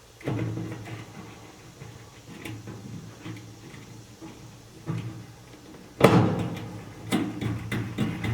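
Irregular clunks and knocks of metal dryer parts being handled during a drum support wheel replacement. The loudest clunk comes about six seconds in.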